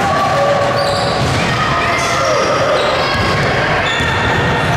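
Basketball game sounds in a gym: a ball bouncing on the court amid many short, high sneaker squeaks, echoing in a large hall.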